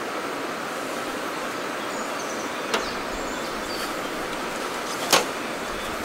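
Steady outdoor background rush with two sharp clicks, about three and five seconds in, and a few faint high chirps.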